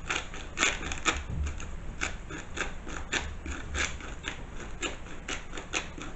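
Hand-turned spice mill grinding a five-berry peppercorn blend: an uneven run of sharp clicks, a few a second.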